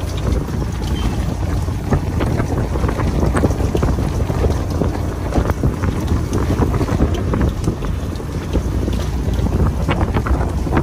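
Strong wind buffeting the microphone over choppy water, with the waves splashing against the side of a fishing boat in many short, irregular slaps.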